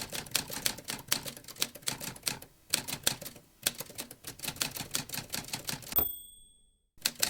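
Typewriter keys clacking in quick runs with short pauses, then the carriage-return bell dings once about six seconds in; the typing starts again near the end.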